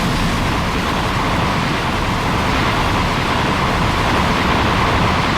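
Godzilla fan-made sound effect: a loud, steady rushing rumble of noise, heavy in the lows, with a hiss band in the middle, running without a break.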